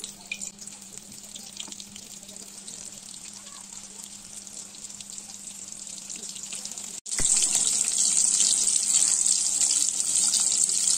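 Battered chicken pieces deep-frying in hot oil: a steady sizzle with fine crackles. It cuts out for an instant about seven seconds in and comes back much louder.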